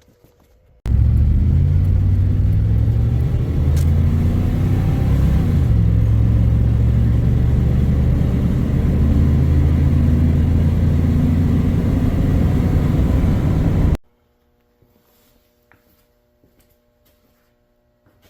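Car engine running with a deep, steady exhaust note and a brief rise and fall in pitch about five seconds in. It starts abruptly about a second in and cuts off suddenly near the end.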